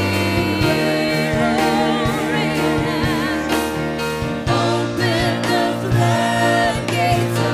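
Live gospel praise music: a band with electric guitar, keyboard and drums playing under voices singing with vibrato, the bass note shifting twice.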